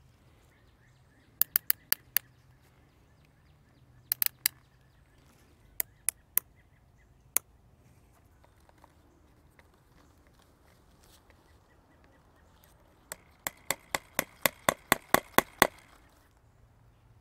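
Sharp metallic taps of a small hammer driving a fastener into a wooden post. They come in short groups of two to four quick taps, then a run of about a dozen strikes near the end that get faster and louder as it is driven home.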